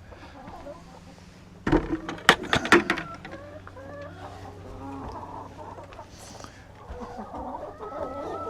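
Hens clucking in a chicken coop, with a short run of sharp knocks and clatter about two seconds in.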